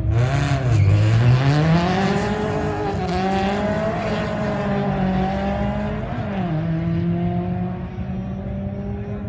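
Drag race car launching hard off the start line and accelerating down the strip. Its engine note climbs over the first two seconds and then holds, dipping briefly at a gear shift about six seconds in.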